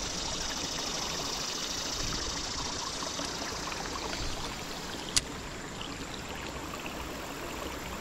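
Creek water flowing steadily, with a single sharp click a little over five seconds in.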